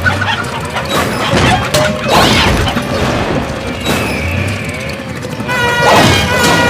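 Cartoon-style crash and smash sound effects over music, with loud crashes about two seconds in and again near the end.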